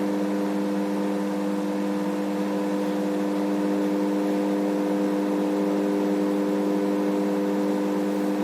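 Microwave oven running, a steady hum with a few even tones and no change throughout, as it heats food on a test run after its high-voltage diode was replaced.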